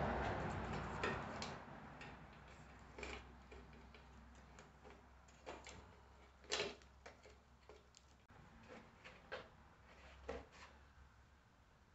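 A rush of noise fading away over the first two seconds, then faint, irregular clicks and knocks of metal parts and hand tools being handled during disassembly.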